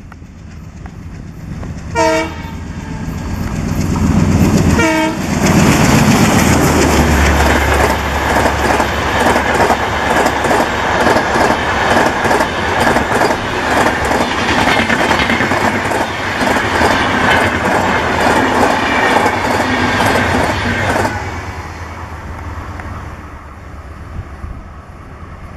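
WDM-3D ALCO diesel locomotive sounds two short horn blasts, then passes close with a low engine rumble. Its rake of LHB coaches follows, wheels clicking rhythmically over the rail joints, until the sound fades near the end as the train draws away.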